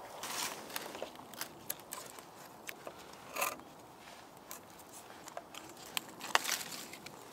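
Bushcraft knife working the bark of a birch log: a series of short, crisp scrapes and cracks, the sharpest one a little past six seconds in.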